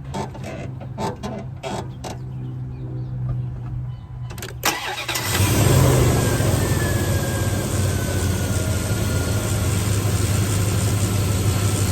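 2000 Dodge Durango's 5.9-litre V8 starting up about five seconds in, after a few clicks and knocks, then idling steadily.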